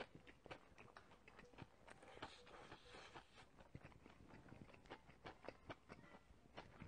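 Faint close-up chewing of a mouthful of bibimbap: many small, irregular wet mouth clicks, with soft spoon sounds as a spoonful is scooped from a pot of stew.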